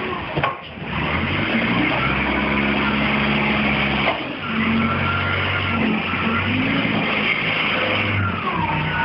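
Tractor engine running under load as the front loader pushes manure across a concrete floor. The engine note shifts up and down with the work, and a higher whine above it bends in pitch. The sound dips briefly about half a second in and again about four seconds in.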